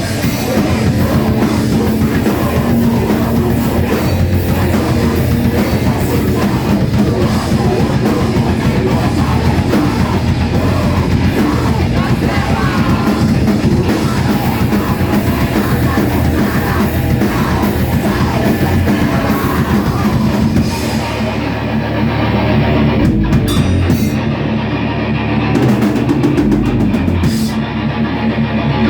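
A rock band playing live: distorted electric guitar, bass and drum kit. About two-thirds of the way in, the cymbals and high guitar drop out, leaving bass-heavy riffing broken by a few sharp accented hits.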